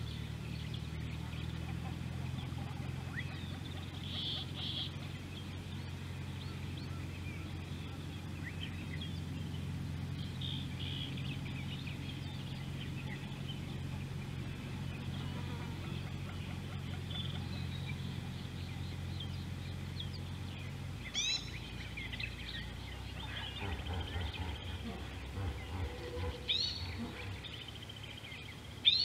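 Outdoor ambience of birds calling in short high notes, over a steady low hum that stops about two-thirds of the way through. Several louder sweeping bird calls come in the second half, the loudest right at the end, with a few low thuds and rustles in between.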